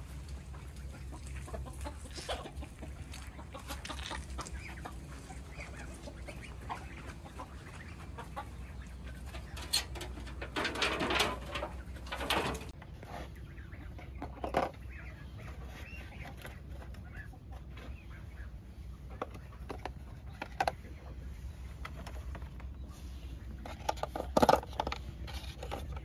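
Chickens clucking in short, scattered calls every few seconds, loudest in a cluster about eleven seconds in and again near the end, over a low steady hum.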